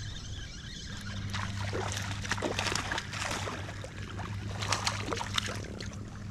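Water splashing and trickling in short, irregular bursts and drips, over a steady low hum.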